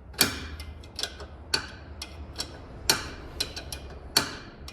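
Sharp metal clicks and clinks of hand tools and loose bolts on the strut and brake parts, about ten of them at irregular spacing, a few louder than the rest.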